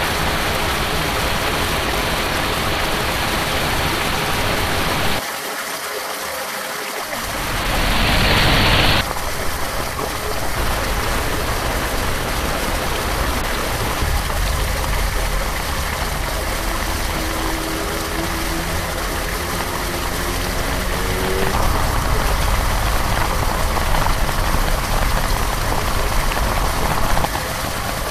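Heavy rain and runoff water rushing into a street storm drain, a steady loud hiss that changes abruptly at cuts between shots. Later, rain falling on puddles, with a low rumble and, in the middle, a faint rising hum like a passing vehicle engine.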